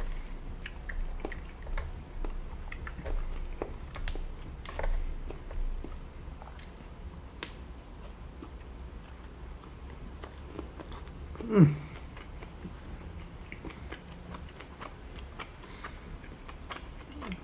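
Close-miked chewing and biting of sushi and raw fish, with wet mouth smacks and clicks scattered throughout. About eleven seconds in there is one brief voiced sound.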